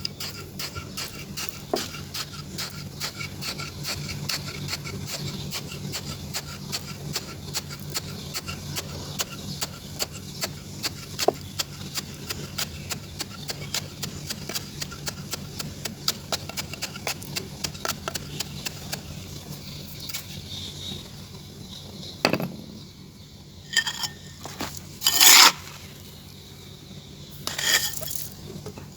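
Gritty sand or clay being worked by hand, giving dense rapid crackling and ticking, then near the end a few louder scraping rubs.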